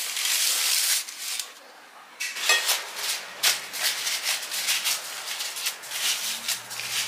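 Dry phyllo (baklava) pastry sheets being torn and crumbled by hand into a glass bowl: a quick run of many short crinkly crackles. At the start, before a brief lull, there is a rustle of parchment paper under dough rolls on a baking tray.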